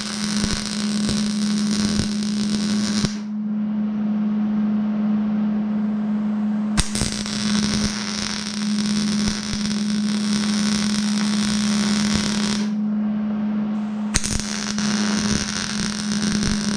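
Electric arc welding on a steel excavator canopy frame: three runs of steady crackling arc. The first stops about three seconds in, the second runs from about seven to twelve and a half seconds, and the third starts about fourteen seconds in. A steady low hum sits underneath.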